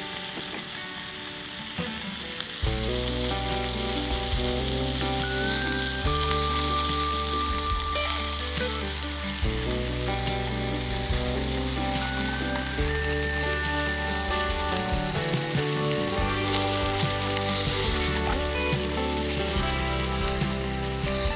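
Beef sizzling as it fries in olive oil in a pan, a steady high hiss. Background music with a bass line and melody comes in about two and a half seconds in and carries on over the sizzle.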